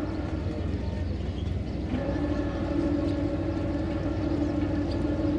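Excursion boat's engine running steadily under way, a low drone with a few steady tones above it; the tone changes about two seconds in.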